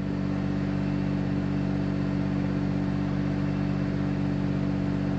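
Steady machine hum at an even pitch, made of several fixed low tones with no rise or fall.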